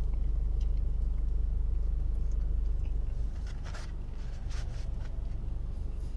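Low steady hum of a car idling, heard inside the cabin. Over it come soft chewing and mouth noises from eating a bite of sandwich, strongest about three and a half to five seconds in.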